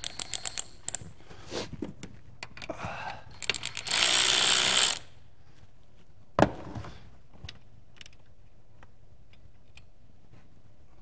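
Ryobi cordless drill being readied: a quick run of ratcheting clicks, then the drill runs for about a second, followed by a single sharp knock.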